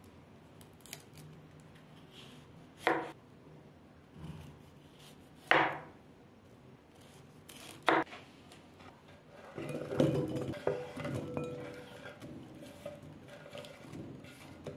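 Knife chopping cauliflower on a bamboo cutting board: three sharp knocks of the blade striking the wood, a couple of seconds apart. Then a longer clatter with a ringing tone as the florets tumble into a glass bowl.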